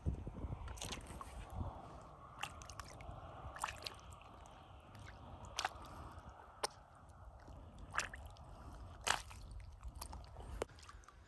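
Water sloshing and dripping with scattered sharp clicks and taps, about nine in all at uneven intervals, over a low rumble.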